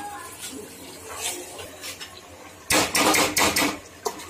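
A spoon scraping and clattering against a metal cooking pot while stirring a thick masala curry, with a few light knocks early on and a loud run of scraping about three seconds in that lasts about a second.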